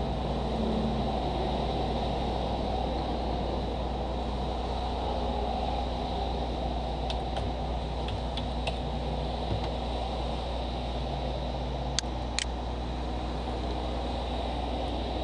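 Steady hum and hiss of a computer's fan and room noise, with a handful of light computer keyboard and mouse clicks in the second half, two sharper ones close together near the end.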